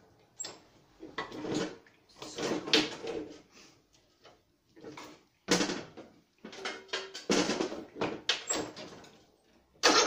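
Irregular clattering and scraping from metal parts and tools being handled, a dozen or so short noises; the engine is not running.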